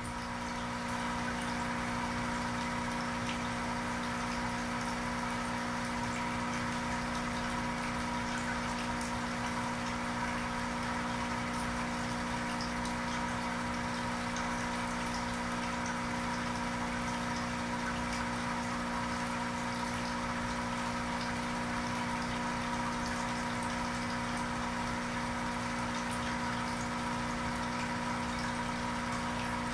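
Aquarium pump running steadily: a constant hum with a bed of water noise.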